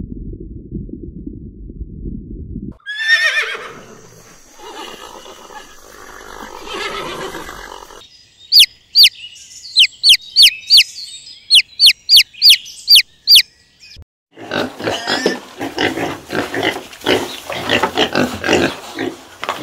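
About a dozen loud, sharp peeps from young chicks, each falling quickly in pitch. They follow a low rumble and a brief falling animal cry. Near the end, a warthog grunts in rough, rapid pulses.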